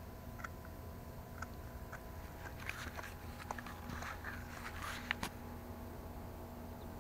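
A tabby cat sniffing and brushing against a camera at ground level: faint scratchy rustles and small clicks close to the microphone, thickest in the middle, over a faint steady hum.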